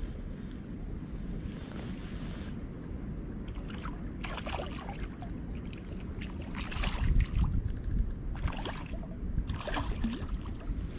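Wind rumbling on the microphone, gustier in the second half, with scattered clicks and rustles from a spinning reel being cranked and the rod handled during a retrieve.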